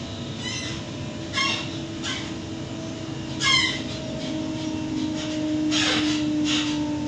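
Inside a Waratah Series 2 electric train carriage: steady running noise with a low hum, broken by four short squeaks that drop in pitch in the first few seconds, then three short hissing bursts near the end.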